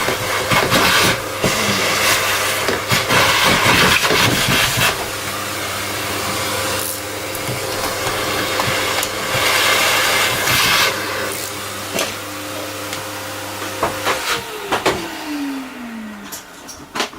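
Electric drill running at a steady slow speed, boring a hole for a point motor through the baseboard, with rough grinding bursts as the bit cuts. Near the end the trigger is released and the motor winds down with a falling whine.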